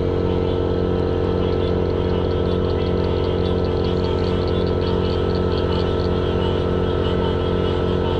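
Small engine running steadily at an even, unchanging speed, a constant low hum. A fast run of short, high chirps sounds over it for a few seconds in the middle.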